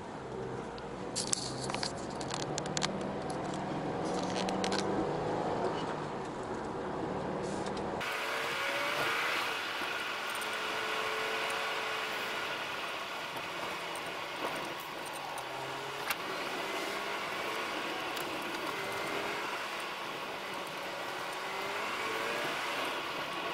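A car driving on a paved road, heard from inside the cabin: steady engine and tyre noise. For the first few seconds there are irregular clicks and rattles from a dashboard camera mount that repeated vibration has worked loose. About eight seconds in, the sound cuts abruptly to a brighter, hissier road noise without the low engine note.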